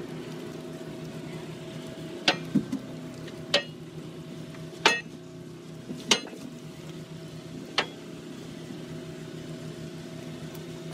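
Boat engine running with a steady hum while a gill net is hauled in, with six sharp knocks scattered through, the loudest about halfway.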